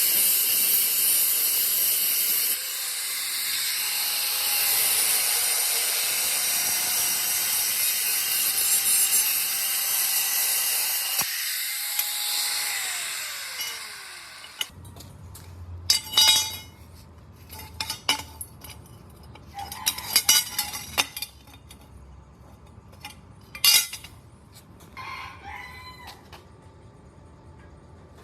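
A loud, steady hiss of air or spray for about the first fifteen seconds, then stops abruptly. Scattered metal clinks and knocks of hand-tool work follow, and a rooster crows near the end.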